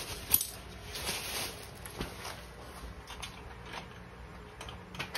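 Scattered light clicks and knocks of metal tools and a motorcycle exhaust being handled during fitting, the sharpest about a third of a second in.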